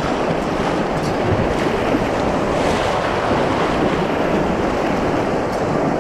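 Rushing river water in a small rapid around an inflatable kayak, a steady rush with wind buffeting the microphone.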